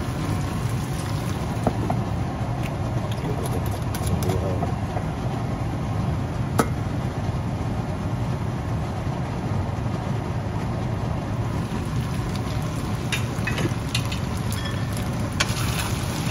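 Steady low rumble of a kitchen range hood fan over a lidded frying pan of chicken sizzling gently on low heat after a splash of rice wine. A sharp click about six and a half seconds in, and a few light clicks near the end.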